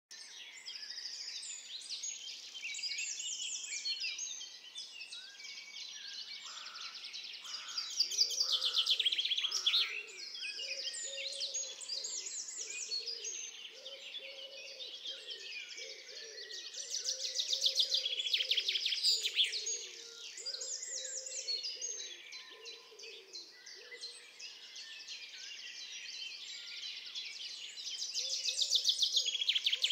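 Several songbirds singing and chirping together, with a loud, rapid trilled phrase that comes back about every ten seconds. A faint low pulsing sound runs underneath from about eight seconds in.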